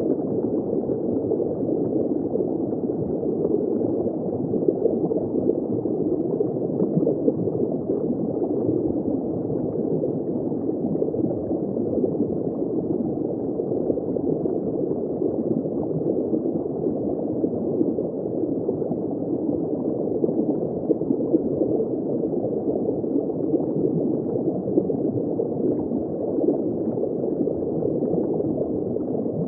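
Underwater ambience heard just below the surface: dense, steady bubbling and gurgling of water, muffled, with no high sounds, and small pops scattered irregularly through it.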